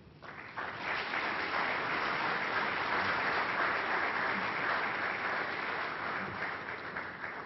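Audience applauding. The clapping builds in during the first second, holds steady and thins out toward the end.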